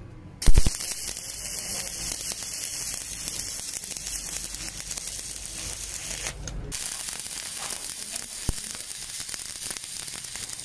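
Stick (arc) welding: the electrode's arc crackles and hisses steadily, striking up with a sharp onset about half a second in and dropping out briefly about six seconds in.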